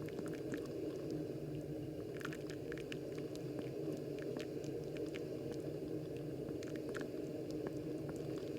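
Moccamaster KBGV Select drip coffee maker brewing: a steady low rushing noise from the machine, with scattered small pops and drips as hot water showers onto the blooming coffee grounds.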